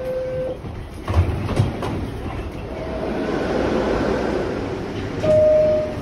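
New York City subway car door chime: the last low note of a two-note descending chime fades, then a couple of knocks about a second in and the steady rumble and hiss of the car. Near the end the high first note of the next chime sounds.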